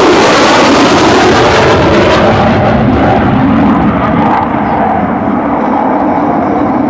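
Loud jet roar of fighter jets passing in a formation flyby: an F-22 Raptor and an F-15E Strike Eagle flying with a P-51 Mustang. The rush is strongest for the first few seconds, and its high hiss falls away about four seconds in, leaving a lower rumble.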